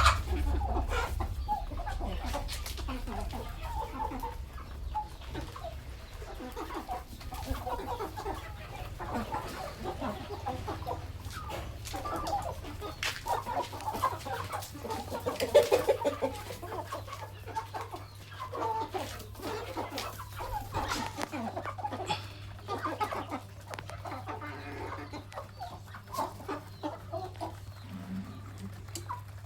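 A flock of chickens clucking and calling over one another as they feed, with one louder call about halfway through and a steady low hum underneath.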